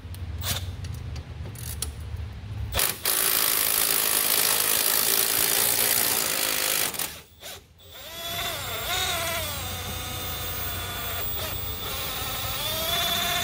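Cordless electric ratchet running on a 14 mm steering-knuckle bolt, backing it out. It runs in two long stretches with a brief stop between them, the second a motor whine that wavers in pitch as the trigger and the load change.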